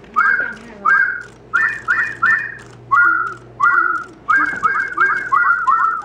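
A group of electronic toy birds whistling together: a quick run of short, identical chirps, each a fast drop in pitch into a held note, about two or three a second and sometimes overlapping.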